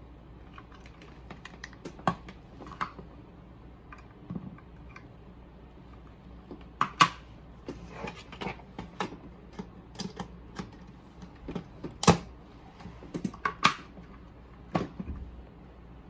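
Hands handling plastic parts and cables on a tabletop: irregular clicks, taps and knocks as a power adapter is connected and its mains plug is pushed into a power strip. The sharpest clacks come about seven and twelve seconds in.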